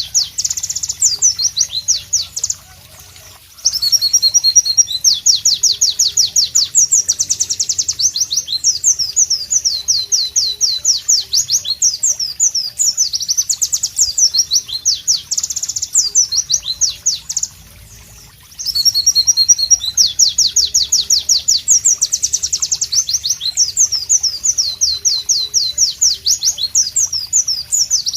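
A white-eye (pleci) singing loudly: long phrases of rapid, sharp high notes and trills, broken by two brief pauses.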